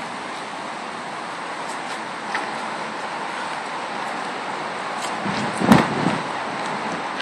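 Steady traffic noise from surrounding roads, with a brief louder rush about five and a half seconds in.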